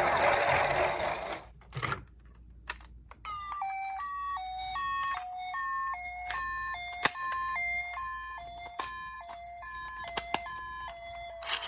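Ambulance siren in the Japanese two-tone 'pee-po' pattern, alternating between a higher and a lower note about once a second, starting about three seconds in. Before it comes a loud rushing noise that cuts off after a second or so. Sharp clicks are scattered through the siren.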